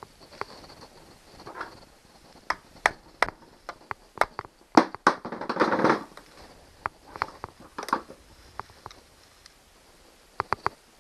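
Scattered sharp metal clicks and clinks of a socket and long extension bar being handled and fitted against an outboard powerhead, with a brief rustling scrape about five seconds in and a quick run of clicks near the end.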